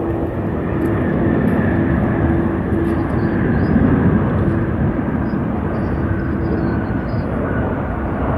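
Jet airliner engines rumbling steadily as the plane passes, with a faint high whine over the rumble.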